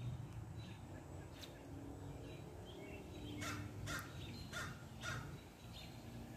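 A crow cawing four times in quick succession, about half a second apart, starting about halfway through.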